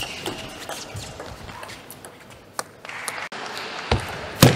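Sharp clicks of a table tennis ball off bats and table, a few spread out, the loudest near the end, over a soft even background of hall noise that rises about three seconds in.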